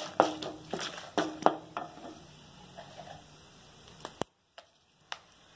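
Wooden spoon stirring peanuts, dals and dried red chillies roasting in oil in a steel kadai: a run of sharp taps and scrapes in the first two seconds, then quiet frying with a few single clicks near the end.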